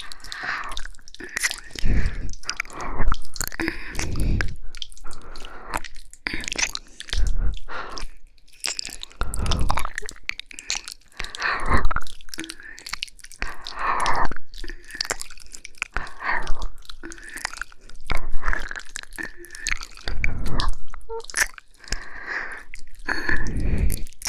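Slow, wet ASMR mouth sounds of ear licking and kissing close up to the microphone, coming in separate bursts about every one to two seconds, many with a soft low thud.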